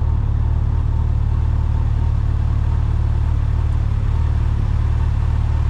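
A vehicle running with a steady low rumble. Engine and road noise continue without a clear change.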